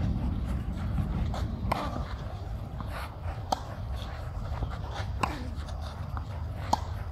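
Tennis rally on a clay court: tennis balls struck by rackets in sharp pops, about four hits roughly every one and a half to two seconds, over a steady low rumble.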